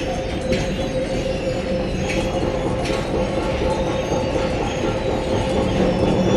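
Steady rumbling noise with a constant mid-pitched drone running through it and faint scattered clicks, growing slightly louder toward the end.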